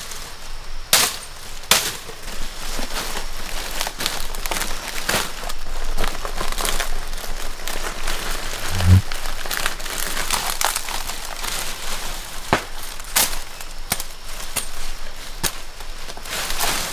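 Dry fronds being handled and broken by hand, rustling and crackling with many sharp snaps throughout. There is one short low thump about nine seconds in.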